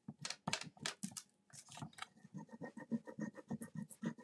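Scratchy rubbing of a transfer tool burnishing a rub-on transfer sheet onto a ceramic crock: quick back-and-forth strokes, settling into an even rhythm of about four or five strokes a second about halfway through.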